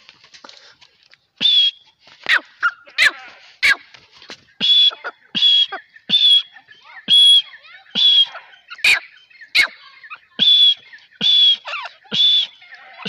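Grey francolin calling: a loud run of short, clear notes, more than one a second, starting about a second and a half in, with quick sharp chirps between them.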